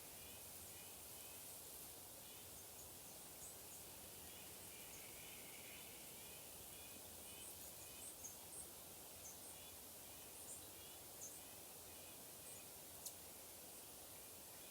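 Very faint outdoor ambience: a steady hiss with small birds chirping and twittering in short high calls, and a single sharp click near the end.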